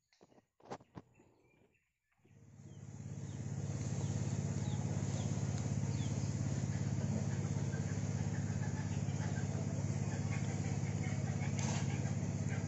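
A few short knocks, then a small engine comes up about two seconds in and runs steadily at one constant speed with a low, pulsing hum.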